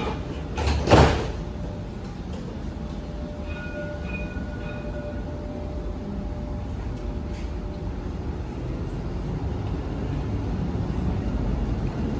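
Interior of a Dubai Tram car in motion: a steady low rumble of the running tram, with a brief loud rush of noise about a second in and a faint steady whine for a few seconds in the middle.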